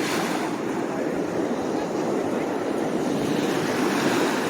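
Steady rushing noise of surf breaking on the beach, with wind on the microphone.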